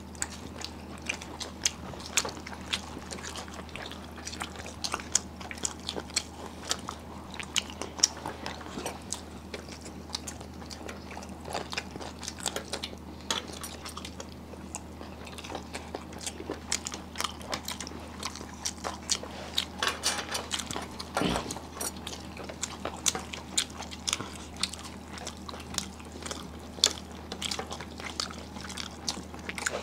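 Close-miked eating of a curry meal: many small wet chews, bites and mouth clicks, with a stronger knock about 21 seconds in, over a steady low hum.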